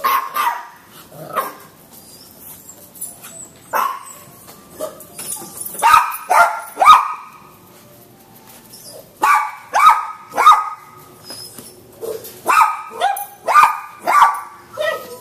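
Puppy barking in short, high-pitched barks that drop in pitch, coming in bunches of two to four with pauses between.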